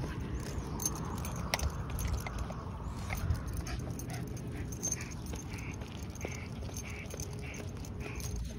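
Dog panting with soft, even breaths about twice a second, over a steady low rumble.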